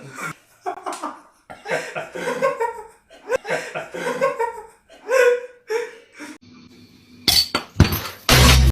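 People laughing and vocalising in short bursts, then a few loud noisy crashes near the end.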